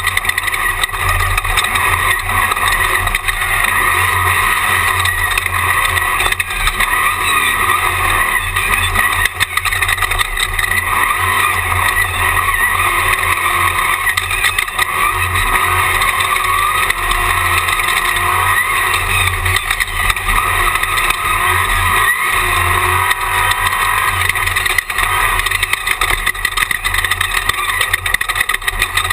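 Jimco Class 1 desert race car's engine running hard at speed, heard from inside the cockpit, with steady wind noise and frequent knocks and rattles from the chassis.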